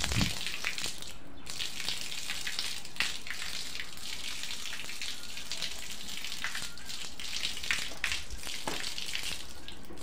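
A water buffalo urinating: a steady stream of urine splashing onto the floor.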